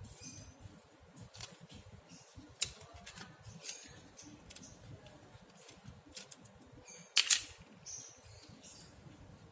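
Scattered small clicks and taps from handling the parts of a Nokia X2-01 phone, with a sharp double click about seven seconds in.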